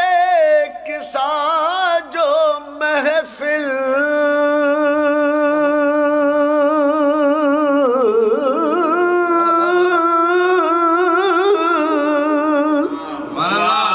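A man singing a line of Urdu devotional poetry, drawing it out in long held notes with a wide vibrato. The melody drops lower about eight seconds in and eases off near the end.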